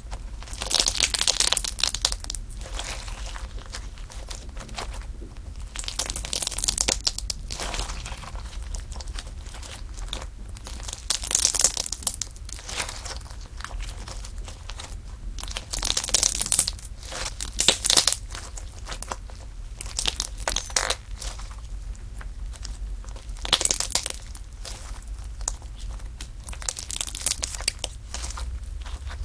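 Slime being pressed and squeezed by hand, crackling and crunching in repeated bursts every few seconds.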